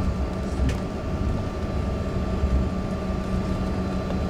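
Jet airliner taxiing, heard from inside the passenger cabin: a steady low rumble of the engines at taxi power with a constant hum over it.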